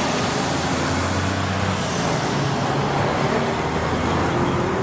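Road traffic noise, with a large vehicle's engine running as it passes close by.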